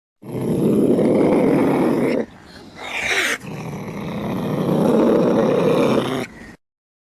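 A cat growling in two long, rough stretches. Between them, about three seconds in, there is a short, higher call that rises and falls.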